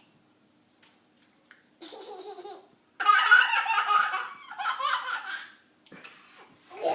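Small child laughing: a short laugh about two seconds in, then a long peal of belly laughter, and another laugh near the end.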